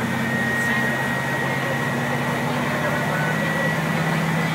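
International DT466 inline-six turbodiesel of a loaded IC CE school bus running under load, heard from inside the cabin: a steady engine drone with a high turbo whine over it. The engine note steps down slightly about three seconds in.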